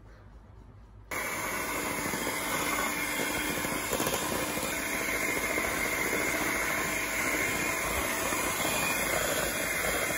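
Electric hand mixer switched on about a second in, then running steadily with its beaters whisking butter, sugar and a freshly added egg in a steel bowl.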